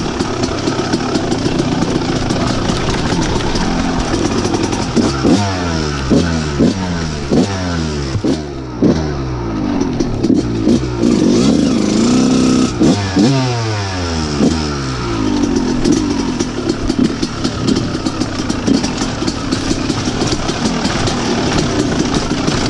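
Kawasaki KX125's 125 cc single-cylinder two-stroke engine running under way. Its revs rise and fall in quick repeated blips through the middle and are steadier before and after.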